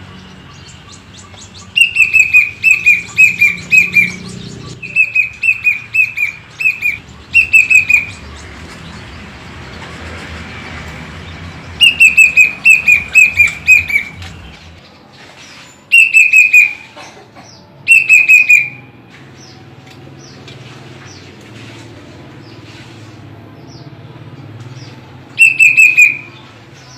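Plaintive cuckoo (kedasih) calling: bouts of four to six short whistled notes, each note sliding down in pitch, repeated about seven times with pauses between.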